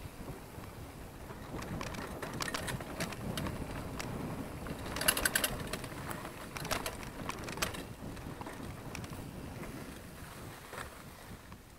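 Mountain bike riding over a dirt singletrack: a steady rumble of tyres on the ground, with the bike's chain and frame rattling and clicking in short clusters over bumps, the loudest about five seconds in.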